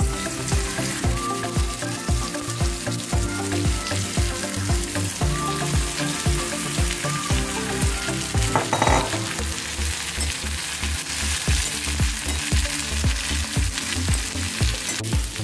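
Sliced bitter gourd sizzling as it fries in oil in a metal wok, stirred with a ladle. Background music with a steady beat plays underneath.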